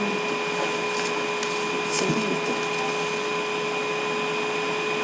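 Steady background hum and hiss with several constant tones, like a fan or electrical noise, and a faint click about two seconds in.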